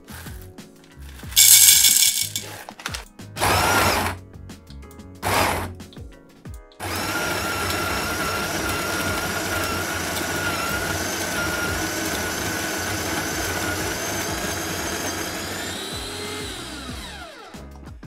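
Wilfa Svart electric coffee grinder grinding an 18-gram dose of beans on its finest setting: the motor runs steadily with a high hum for about nine seconds, then winds down with a falling pitch as it stops.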